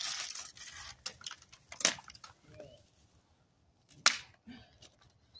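Branches and leaves of a fallen tree limb rustling as it is handled, then a few sharp snaps of wood cracking as the branch is pulled and broken, the loudest about two and four seconds in.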